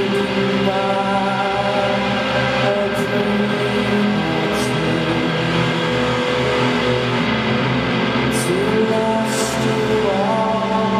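Slow live music: electric guitar and keyboard synthesizer with long held notes, some sliding up into pitch, and a singing voice.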